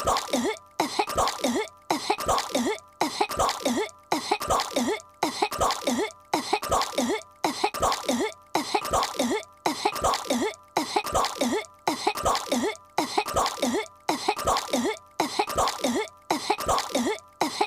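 A cartoon girl's voice coughing and hacking as if choking on chewing gum. One short coughing fit is looped, repeating about once a second.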